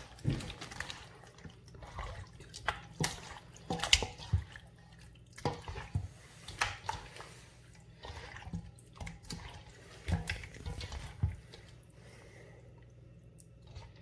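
Chicken drumsticks being mixed by hand in a wet yogurt marinade: irregular squelches and slaps, dying down near the end.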